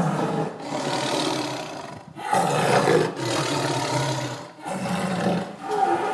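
Tiger roaring: a string of loud, rough roars about a second long each, with short breaks between them.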